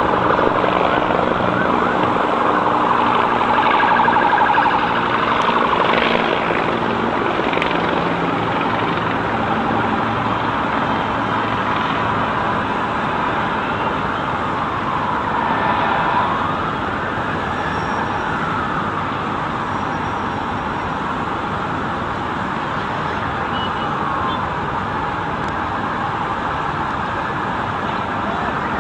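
Emergency vehicle siren wailing in slow rising and falling sweeps over a steady rumble of street noise, with a low engine hum in the first half.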